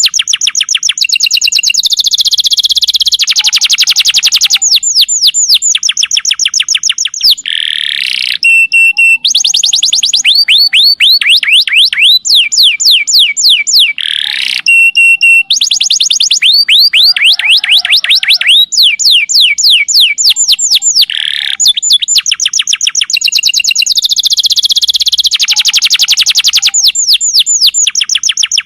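Domestic canary singing a long, almost unbroken song made of fast trills of quickly repeated falling notes. The song is broken twice by a short, steady, held whistle. This is the long, rapid-fire 'nembak' singing used as a lure to stimulate other canaries.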